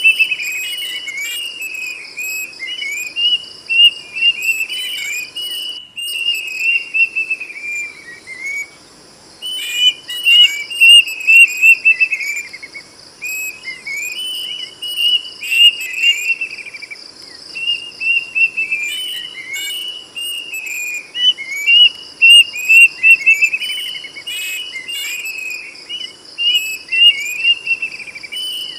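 Plaintive cuckoo (kedasih) singing loud whistled phrases, each a run of quick falling notes lasting a few seconds, repeated with short pauses. A steady pulsing insect trill runs underneath.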